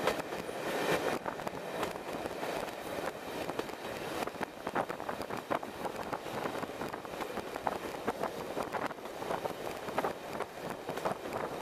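Railway passenger coaches running along the track: a steady rumble of wheels on rail with many irregular clicks and knocks, plus wind rushing past an open carriage window.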